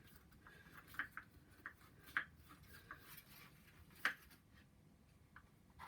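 Strap clamp being tightened around a glued wooden frame: a few faint, irregular clicks, the two loudest about two and four seconds in.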